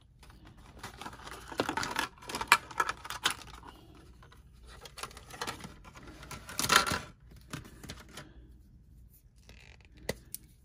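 Marker pens being handled in and out of a clear plastic blister pack: irregular plastic clicks, rattles and crinkling, loudest about two and a half and seven seconds in, with one sharp click near the end.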